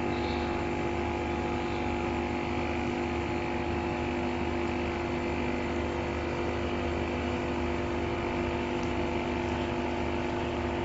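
2-in-1 LCD separator and bubble remover machine running: a steady mechanical hum with several fixed tones that holds unchanged throughout.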